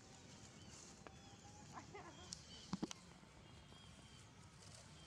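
Mostly quiet with a few brief, high squeaks from a baby long-tailed macaque about two seconds in, then two short, sharp knocks a little later.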